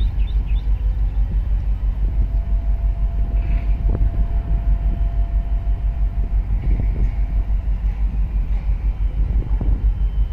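Low, steady throb of a boat's diesel engine heard from on board, pulsing evenly about five times a second.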